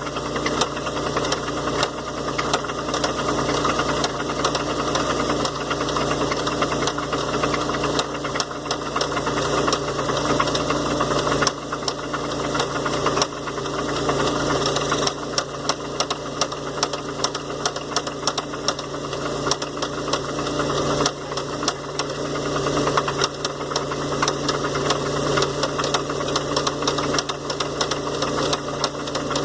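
1993 Oldsmobile Cutlass Supreme engine idling with a steady, rapid knock. The owner thinks it comes from around the accessory pulleys near the power steering pulley, and wonders whether it could be rod knock.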